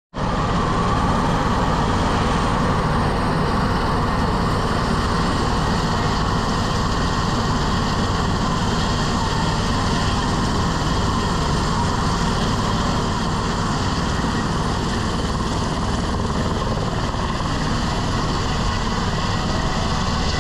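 Helicopter engine and rotor running steadily, a loud, even mechanical noise.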